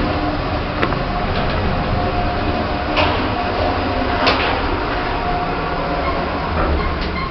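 Otis Gen 2 lift in motion: a steady hum and rumble from the moving car and its drive, with a faint steady whine and two sharp clicks, about three and four seconds in.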